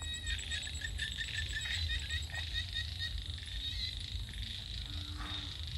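Evening chorus of insects: a steady high buzz, with quick repeated chirps about five a second that stop about two seconds in, over a low rumble.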